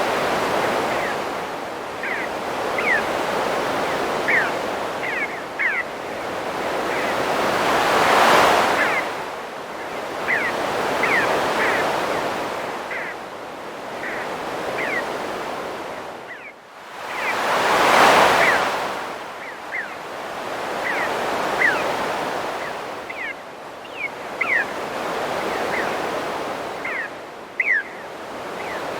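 Ocean surf rolling in and breaking in slow swells, loudest about 8 and 18 seconds in. Birds give short high chirps again and again over it.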